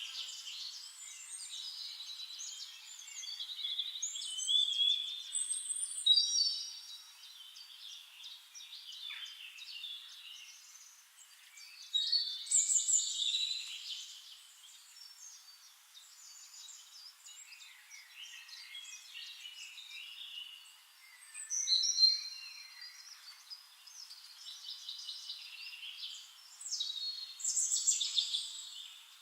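Several songbirds singing and chirping over one another, with short high, quickly sweeping phrases that come in louder bouts about four, twelve, twenty-two and twenty-seven seconds in.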